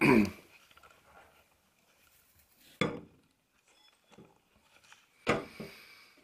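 A knife clinking and scraping against a plate as butter is worked off it into a food processor bowl, with two sharper knocks about three and five seconds in.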